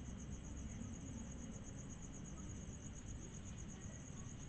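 Crickets chirping: a steady high trill pulsing evenly at about ten pulses a second.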